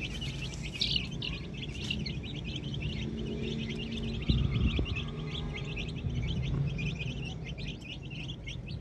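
Chicks cheeping continuously in many fast, short, high peeps, over a low rumble, with a brief knock a little past four seconds in.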